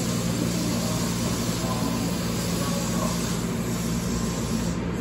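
Steady hum and hiss of an Osaka Metro 400 series subway train standing at a station platform.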